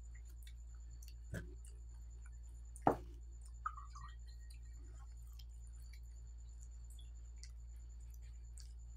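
Quiet eating by hand off a banana leaf, with scattered faint clicks and small mouth and finger sounds, and two short louder knocks about one and a half and three seconds in, over a steady low hum.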